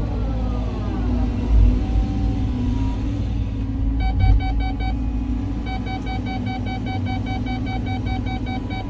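Caterpillar 323 excavator's diesel engine running under load with a steady low rumble, and hydraulic whine sliding up and down in pitch during the first second. From about four seconds in, a rapid electronic beeping, about four to five beeps a second, starts, breaks off briefly, then carries on almost to the end.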